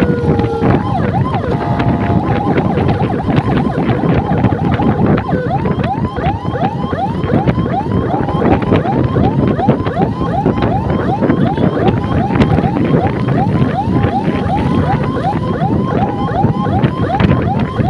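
Electronic siren on an escort motorcycle, sounding a rapid yelp of short rising sweeps about two a second, broken now and then by stretches of steady tone, over wind and road noise from riding.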